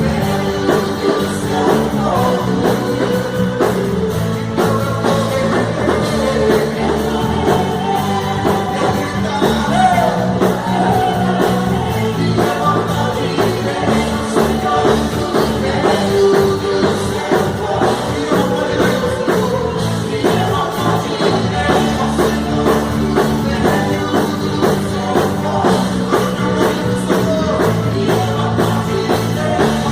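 Live Christian worship band playing an upbeat rock-style song, the drum kit driving a steady beat under a sung melody.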